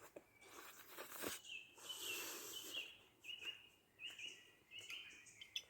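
A bird calling, a string of short high notes repeated over several seconds, over soft rustling, with a sharp click near the end.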